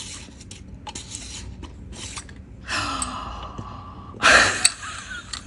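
A woman's breathy gasps of delight as a small round metal tin is opened to show jewelry pieces: softer rustling and handling at first, then two gasps, the louder one about four seconds in.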